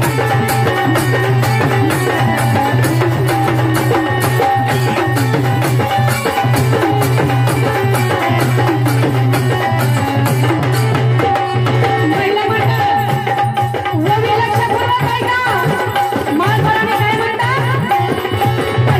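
Marathi jagran gondhal devotional folk music: hand drums keeping a fast, steady rhythm under a wavering melodic line and a continuous low drone.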